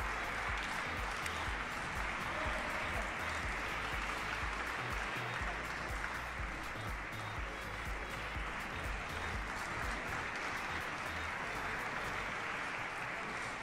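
Arena crowd applauding steadily, with music playing underneath.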